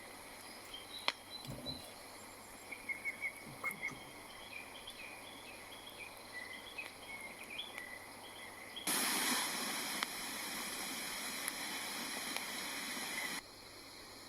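Woodland birds chirping in short calls over faint background hiss, with a few light clicks. About nine seconds in, a louder steady hiss cuts in suddenly and stops just as suddenly some four seconds later.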